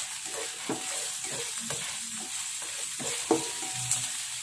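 Chopped onion sizzling in hot oil in a nonstick pan, stirred with a plastic spatula that knocks and scrapes against the pan; the loudest knock comes a little past three seconds in.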